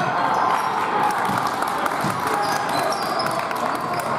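Basketball bouncing on a gym court during play, over a steady background murmur of voices, with a few short high squeaks.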